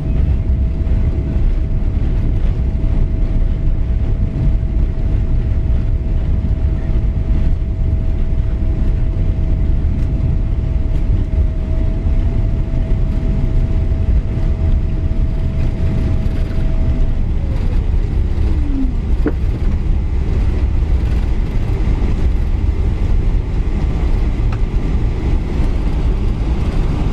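Cabin noise of a Boeing 777-200 slowing on the runway after landing: a steady deep rumble from the engines and rolling gear. A thin steady whine falls in pitch about 17 seconds in.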